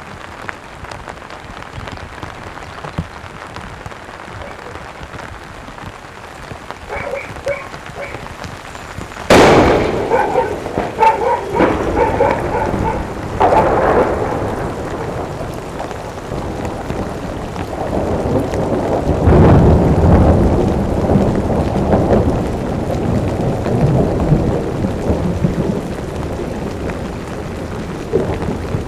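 Steady rain, then about nine seconds in a sudden sharp thunderclap followed by rolling thunder that rumbles on for the rest of the time, swelling again a few times, with a deep rumble around twenty seconds in.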